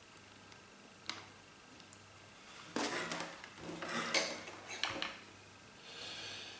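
Light knocks and a clatter of a hot glue gun and small hard objects being set down and moved on a wooden tabletop. There is a single small click about a second in, then several knocks from about three seconds in.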